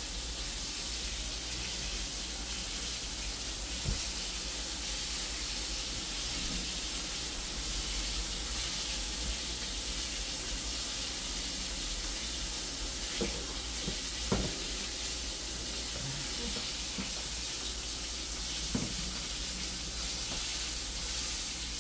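Snapper slices frying in hot oil in a pan: a steady sizzle, with a few light knocks of a utensil against the pan.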